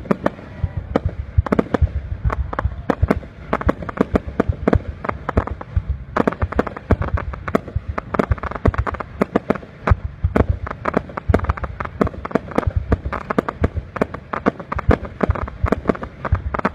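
Aerial fireworks display: shells bursting and crackling stars popping in a dense, continuous run of sharp cracks, several a second, over a low rumble of booms.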